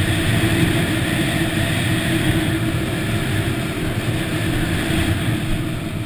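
Yamaha WR250 dirt bike engine running steadily under way at cruising speed, heard from the onboard camera, easing off a little near the end.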